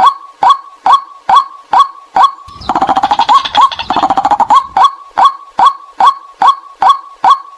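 White-breasted waterhen call used as a lure: a short note repeated evenly a little over twice a second. From about two and a half seconds in to nearly five seconds, a burst of rapid, harsher chattering runs over it.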